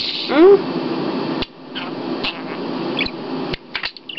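Pet budgerigar chattering in short, faint chirps, with several sharp clicks scattered through. Near the start comes one loud, brief voice sound that rises and falls in pitch.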